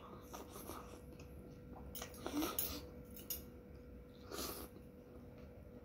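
Close-miked eating sounds: soup sipped from a spoon, mouth noises, and a metal spoon and fork against a ceramic plate, in a few short bursts. The loudest comes about two and a half seconds in. A faint steady hum runs underneath.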